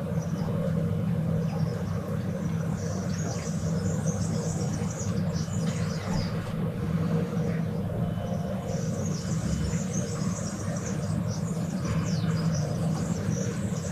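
Morning city ambience: a steady low drone of distant traffic with a constant hum, and many birds chirping high above it, busier in the second half.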